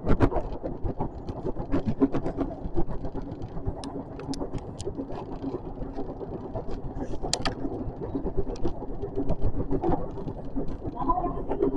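A JR West 521 series electric train running, heard from on board: a steady rumble and rattle with scattered sharp clicks.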